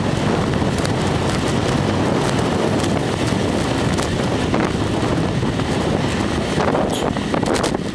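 Wind buffeting the microphone of a camera moving along a road: a loud, steady rumbling rush, with a few light clicks near the end.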